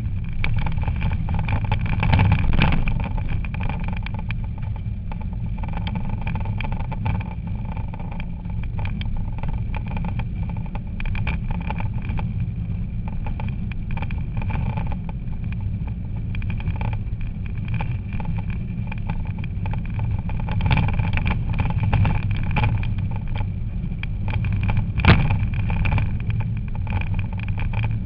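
A rally car's engine running hard at stage speed, heard from inside the cabin, with a steady high whine over the engine note. Frequent knocks and rattles come from the car over the rough road, with one sharp loud bang near the end.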